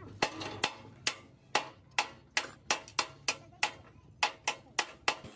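Hand hammer striking steel on a truck's chassis rail: about fourteen sharp metallic blows at roughly two to three a second, each with a short ring.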